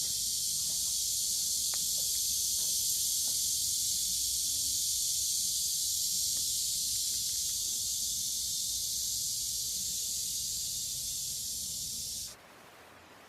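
A loud, steady, high-pitched hiss that cuts off abruptly about twelve seconds in, leaving a faint rustling outdoor background.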